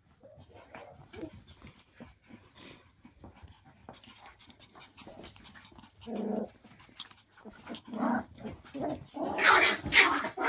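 Cairn terrier puppies play-fighting, panting and growling, with small clicks of paws on the wooden floor. Louder bursts come about six and eight seconds in, and the loudest near the end.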